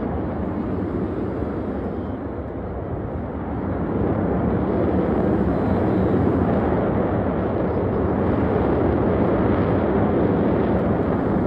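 Jet noise from a formation of Blue Angels F/A-18 Super Hornets flying overhead: a steady roar that grows louder about four seconds in and then holds.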